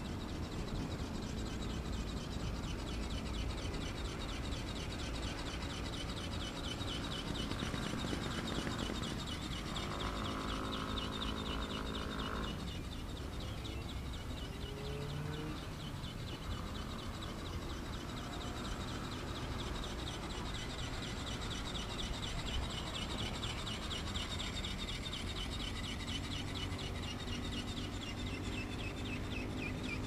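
Outdoor ambience of wind rumbling on the microphone, with distant birds calling. One longer, steady-pitched call lasts about two and a half seconds, starting about ten seconds in.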